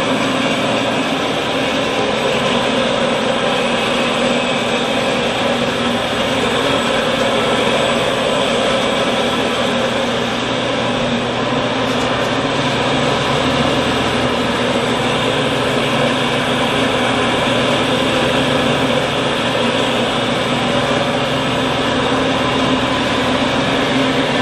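Stainless-steel tri-blender powder-liquid mixer running, with liquid circulating through its hopper: a loud, steady, even machine noise that does not change.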